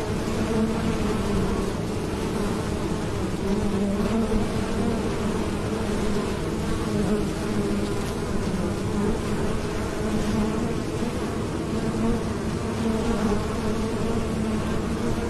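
Many honeybees buzzing steadily as they fly in and out of a hive entrance, a continuous low hum with a higher overtone, rising and falling slightly as bees pass close.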